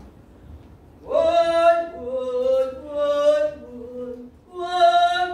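A woman singing unaccompanied, a slow melody of long held notes with short breaks between phrases, starting about a second in.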